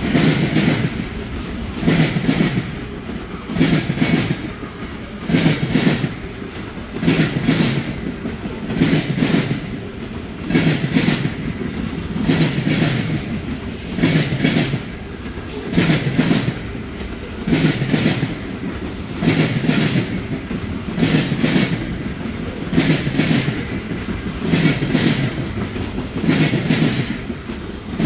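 Freight cars of a Norfolk Southern trash train rolling past, wheels clacking over the rail joints in an even rhythm of about one loud burst every second and three quarters, over a continuous rolling rumble.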